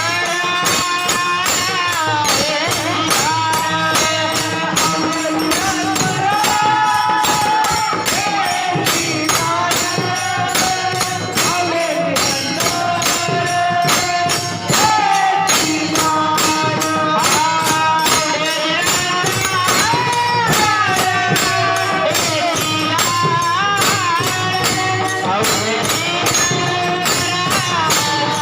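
Kirtan music: a high singing voice carrying a devotional melody with long, wavering glides, over a steady fast beat of jingling metallic percussion.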